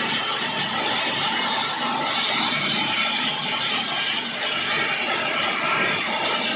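Belt-driven flour mill running: an induction motor turns a line shaft whose flat belt and pulleys drive the grinder, making a steady mechanical noise.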